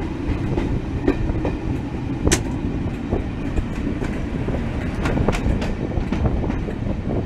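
Loco-hauled train on the move behind a class 37 diesel locomotive, its English Electric V12 engine running under a steady rail rumble. The wheels click and clatter over rail joints and points, with one sharp click about two seconds in and a quick run of clatters around five seconds.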